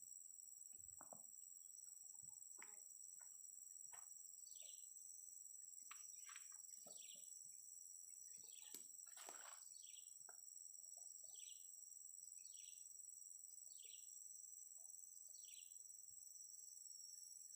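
Faint steady high-pitched insect drone with a bird repeating a short falling chirp about once a second, and a few soft scattered clicks.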